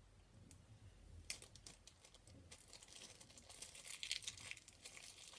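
Plastic bag crinkling and rustling as it is handled and opened, a faint run of crackles starting about a second in.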